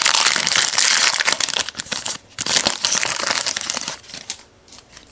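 Wrapper of a trading-card pack crinkling as it is torn open, a dense crackle that stops about four seconds in.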